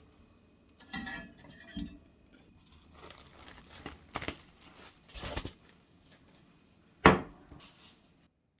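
Kitchen utensils and dishes clinking and knocking: several separate short knocks, the sharpest and loudest about seven seconds in.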